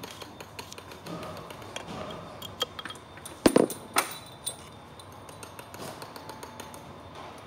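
Scattered metallic clicks and taps of parts being handled on the cast-metal flange of an electric cycloidal reducer motor, with a short cluster of louder knocks about three and a half seconds in and another at about four seconds.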